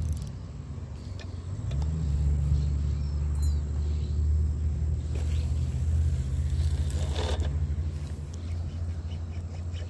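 A motor vehicle engine's low, steady hum, rising a little in pitch about two seconds in and then holding steady, with a brief scrape about seven seconds in.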